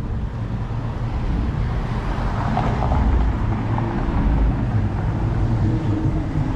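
City street traffic: a steady low rumble of road vehicles, with one swelling louder about halfway through as it passes.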